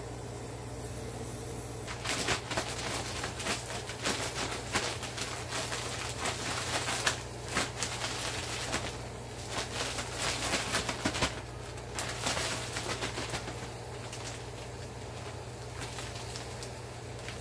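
Plastic zip-top bag holding flour and seasonings being handled and shaken, crinkling and rustling rapidly. It starts about two seconds in and stops a few seconds before the end.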